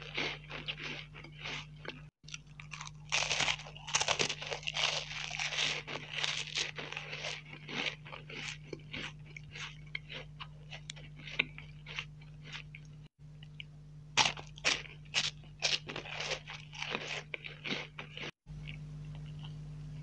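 Close-miked bites and chewing of a crisp cream-filled wafer biscuit, heard as clusters of sharp crunches with softer chewing between them. A steady low hum runs underneath. The sound cuts out briefly a few times, and the crunching stops near the end.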